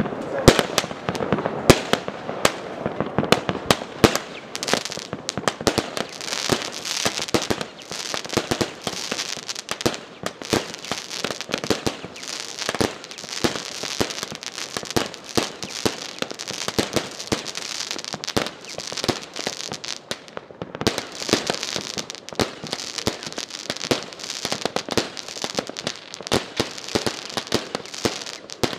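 Fireworks and firecrackers going off in a dense barrage: many sharp bangs and crackles overlapping without a break.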